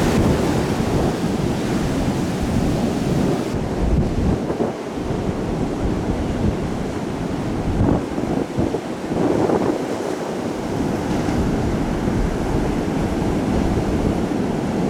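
Storm surf breaking and washing on a beach, with strong wind rumbling and buffeting the microphone.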